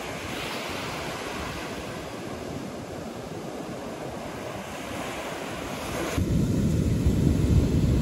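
Ocean surf washing steadily onto the beach. About six seconds in it gives way abruptly to louder, low wind buffeting on the microphone.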